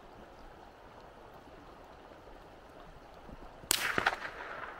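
A gunshot about three and a half seconds in: one sharp crack followed by a short, ragged tail of echoes, over a faint steady rush.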